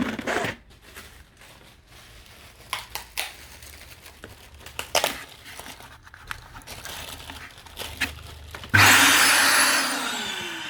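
Crinkling and rustling as vacuum cleaner dust bags and their packaging are handled, with scattered clicks and knocks. About nine seconds in a sudden loud rushing noise starts and fades away with a falling whine.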